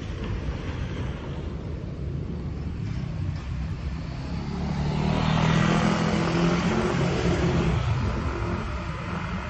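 Wind buffeting a handlebar-mounted phone's microphone and the tyres rumbling on asphalt as a bicycle rolls along. About five seconds in, an oncoming motorbike's engine swells louder as it passes close by, then fades.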